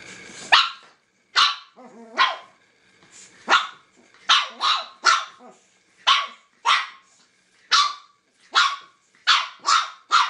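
Pug puppy giving about fourteen short, high-pitched barks in quick succession, one every half-second to second, while facing its chew toy.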